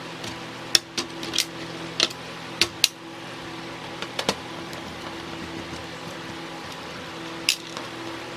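Sharp little clicks and knocks of hands and a tool handling wire connectors on an induction cooker's circuit board, most of them in the first three seconds, over a steady low hum.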